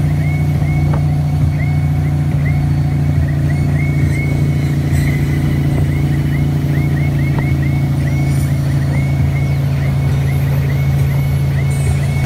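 Wakeboard boat's inboard engine running steadily at towing speed, mixed with the rush of its wake. A faint high squeak repeats irregularly over it.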